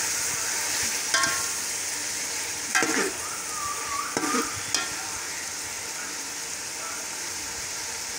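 Minced meat frying and sizzling in oil in a pot, stirred with a metal spoon that scrapes and knocks against the pot a few times. The masala is at the bhuna stage, fried until the oil separates.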